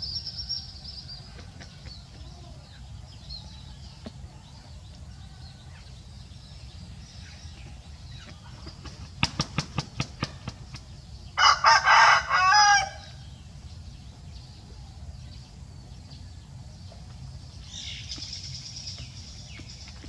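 A rooster beats its wings in a quick run of about eight claps, then crows once, loud and wavering, for about a second and a half. Near the end a faint high hiss comes in.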